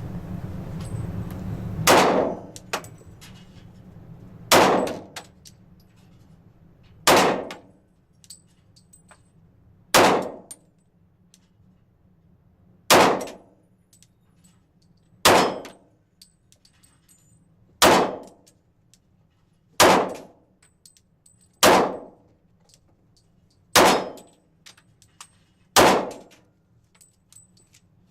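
Eleven single pistol shots from a Glock 27 in .40 S&W with its stock barrel, one full magazine fired slowly at about one shot every two to three seconds. Each shot has a short ringing tail.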